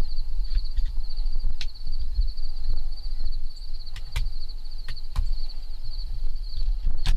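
Insects trilling steadily in a high, fast-pulsing chorus, over a low wind rumble on the microphone, with a few sharp clicks about a second and a half in, twice around four to five seconds, and near the end.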